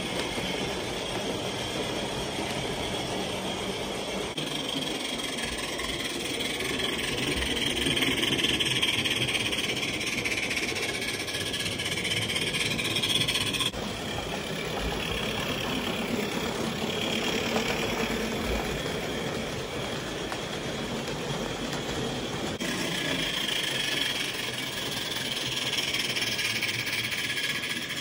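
Large-scale model trains running on the layout: a steady mechanical rolling and running noise from the trains on the track. The sound changes suddenly about halfway through and again later.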